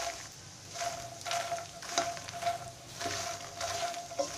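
Fox nuts (makhana) sizzling in a little ghee in a pan on a low flame, stirred in repeated short strokes as they roast toward light brown.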